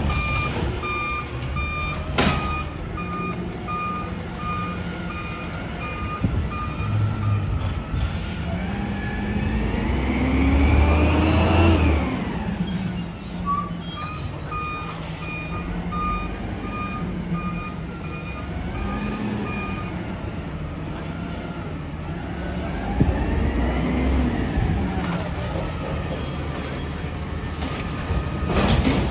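Peterbilt 320 garbage truck with a compressed-natural-gas engine manoeuvring. Its reversing alarm beeps about twice a second for several seconds, stops, then beeps again in the middle stretch. Between the runs of beeping the engine revs up with a rising whine and drops back, and again near the end, with a sharp air release near the start.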